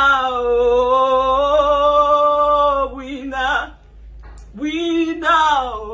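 A woman singing a gospel chorus alone, holding one long note for nearly three seconds, then after a short breath starting another phrase that falls in pitch.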